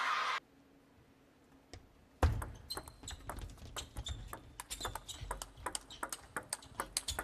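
Near silence for about two seconds, then a table tennis ball clicking sharply off bats and the table, several uneven clicks a second.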